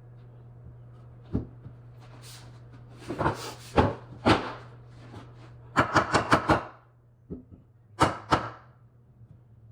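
A series of sharp knocks during carpentry work: a few single knocks, then a quick run of about six, then two more near the end, over a steady low hum.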